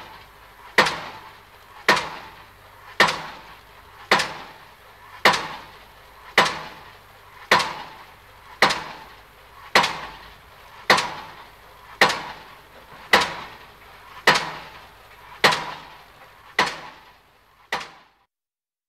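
A slow, even series of sharp knocks, about one every 1.1 seconds, each dying away briefly after the hit. The last knock is softer, and then the sound stops.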